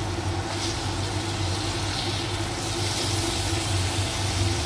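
Spiced bitter gourd, onions and tomatoes sizzling in a stainless steel kadhai while a silicone spatula stirs them, over a steady low hum.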